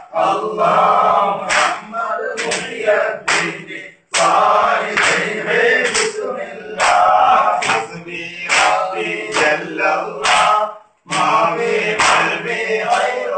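Group of men chanting a dhikr together, with sharp beats struck about once a second and a short pause about eleven seconds in.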